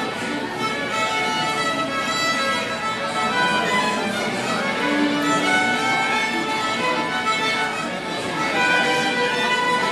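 Violin bowed, playing a melody with held notes.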